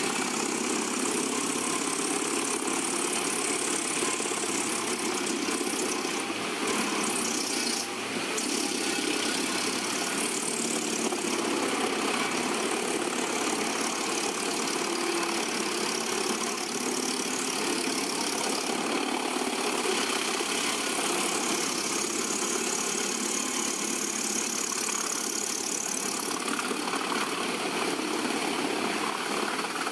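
Komptech Chippo 8010C wood chipper, powered by its 780 hp CAT engine, running at a steady, unchanging level while it chips tree trunks.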